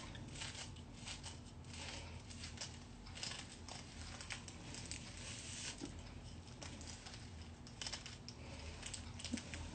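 Bristle hairbrush scratching through hair in repeated short, irregular strokes, faint and scratchy, with a few louder strokes near the end.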